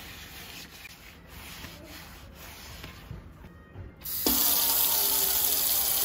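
A few faint rubbing strokes, then a kitchen tap is turned on about four seconds in and water runs hard and steady into the sink.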